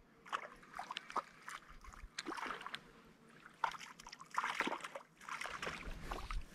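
Irregular splashing and sloshing of water: a run of short splashes and trickles with a few sharp clicks among them, pausing briefly twice.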